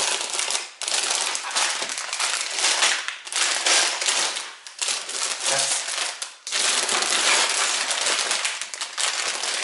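Clear plastic bags of LEGO pieces crinkling and rustling as they are handled, lifted out of a cardboard box and piled on a table. The rustling breaks off briefly a few times.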